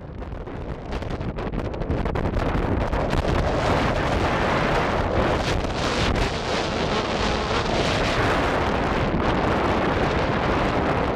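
Strong wind buffeting an action camera's microphone: a loud, rough rush with crackling gusts. It builds over the first couple of seconds, then holds steady.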